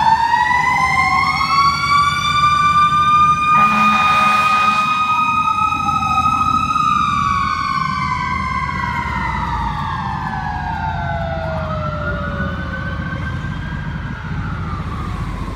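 Fire rescue truck's sirens wailing, two tones rising and falling over each other, with a short horn blast about four seconds in. In the second half the sirens slide down in pitch and fade as the truck pulls away.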